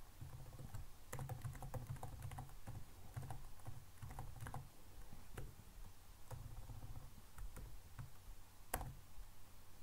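Typing on a computer keyboard: a run of quiet, irregular key clicks, with one sharper click nearly nine seconds in.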